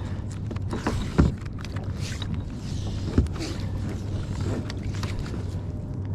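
Boat engine running steadily under a rough rush of wind and water, with two low thumps, about a second in and again about three seconds in.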